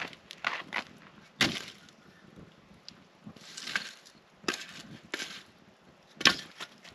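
Pieces of split firewood knocking against each other and onto the fire as they are laid on a campfire: a handful of sharp wooden knocks, the loudest about six seconds in.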